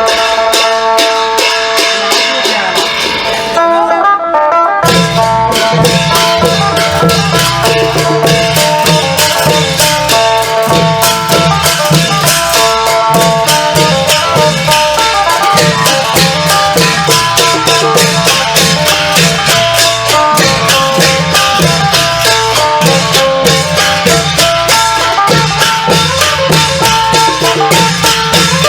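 Isan klong yao long-drum ensemble music: a plucked phin (Isan lute) plays the melody alone at first, then about five seconds in the long drums and bright percussion come in with a steady, driving beat under it.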